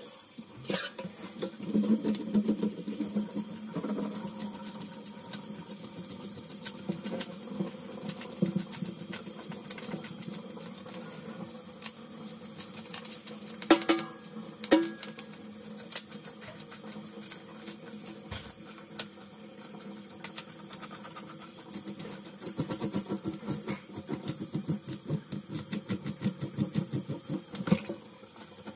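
Knife working on a large snapper on a cutting board: a long run of rapid small clicks and scrapes, with a couple of louder knocks about halfway through. A steady low hum sits behind it.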